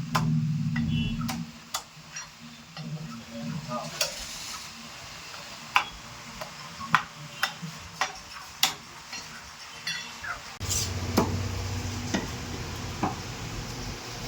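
Kitchen utensil sounds: a run of sharp, irregular clinks and knocks over a steady faint hiss, with a low hum at the start and again from about eleven seconds in.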